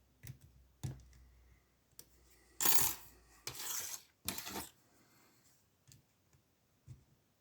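Small metal lockpicking tools (picks and tension wrenches) clinking and jingling together in three short bursts as they are handled, with a few single clicks before and after.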